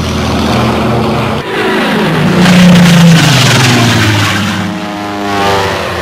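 Biplane propeller engine droning, its pitch shifting, then falling through the second half as the plane passes by.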